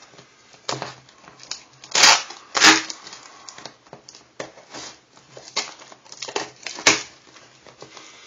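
Packing tape on a cardboard box being slit with a scissor blade and torn away: irregular scraping and ripping of tape and cardboard. The loudest rips come about two seconds in and again near seven seconds.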